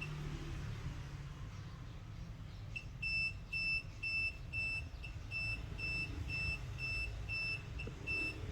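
Charger or power supply alarm beeping, a repeated high-pitched beep about twice a second that resumes about three seconds in after a pause: an over-current warning while a phone battery is pre-charged through it.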